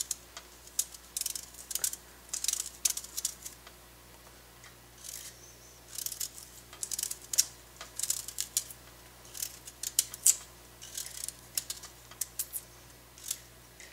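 Paring knife peeling a beetroot, the blade scraping and slicing off the skin in short, irregular strokes, with a brief lull about four seconds in.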